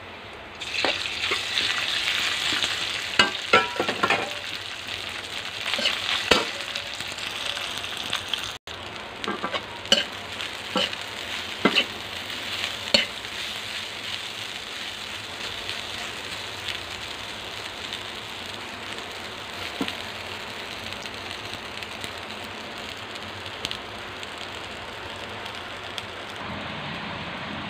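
Garlic and rice sizzling in hot oil in a metal wok while a slotted metal spatula stirs and scrapes, with sharp clinks of the spatula against the pan. The sizzle jumps up about a second in, the clinks come thick through the first half, then it settles to a steady sizzle with only an occasional clink.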